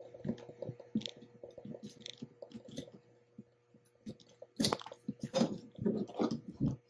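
Wet crunching and squelching of a knife cutting the tendons and connective tissue at the joint between a deer's skull and neck, the head being twisted against it. Faint scattered clicks at first, becoming louder and denser about four and a half seconds in.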